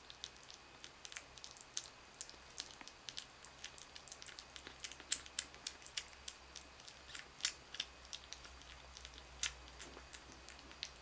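Kitten eating from a ceramic bowl: quick, irregular wet clicks and smacks of lapping and chewing, several a second.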